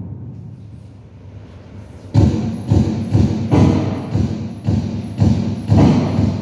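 A string of about nine gunshots fired in quick succession, roughly two a second, starting about two seconds in, each followed by a short echo.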